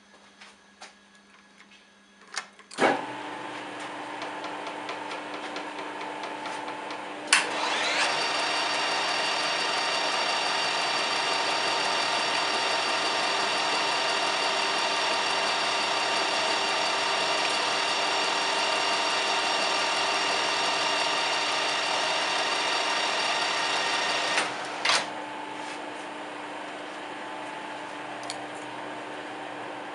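Metal lathe motor starting with a clunk about three seconds in and spinning a faceplate that carries a connecting rod. After a click a few seconds later it runs louder with a steady whine while a roughing cut is taken on the rod's big end. Two clicks near the end drop it back to a lower steady hum.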